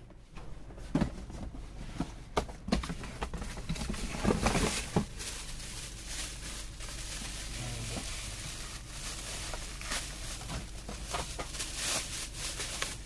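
Handling of a plastic hair dryer and its packaging: scattered clicks and knocks over continuous rustling.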